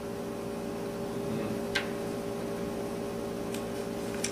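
Room tone: a steady hum, with a few faint clicks, one a little under two seconds in and two near the end.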